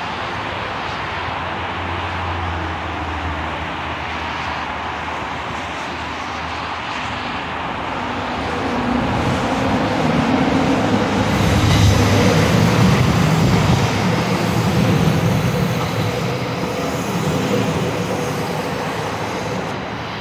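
Steady road-traffic noise, then a Calgary Transit Siemens SD160 light-rail train pulling into the station. Its rumble grows louder from about eight seconds in and eases off near the end as it comes to a stop.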